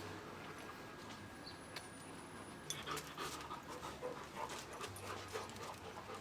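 A dog panting, with scattered small clicks and taps from about halfway through.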